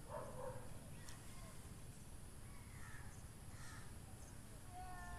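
A few faint crow caws, the last one near the end a clearer falling call.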